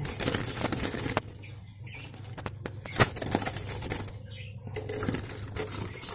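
Scratchy rustling, taps and knocks at a wooden bird cage, with one sharp knock about three seconds in. Hands are working at the cage bars, and the caged yellow-vented bulbul scrabbles and flutters inside.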